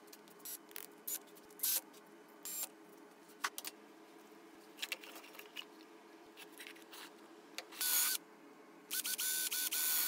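Power drill running in short bursts: one burst about eight seconds in and a run of quick trigger pulses near the end. Light clicks and knocks of handling wood parts and clamps come in between.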